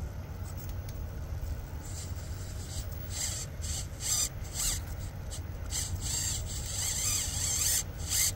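Micro RC rock crawler's small electric motor and gear drivetrain whining in short bursts as the throttle is blipped, tires scrubbing on rock while the rig is stuck hung up in a crevice. The bursts start a few seconds in and come several times a second apart.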